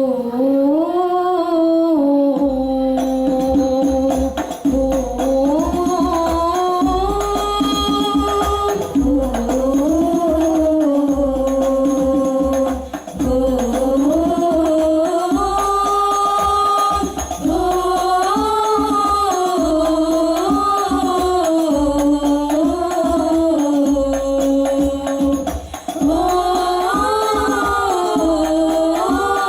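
Banjari ensemble performing a sholawat: a solo voice sings a long, ornamented melodic line over terbang frame drums, which come in about two seconds in.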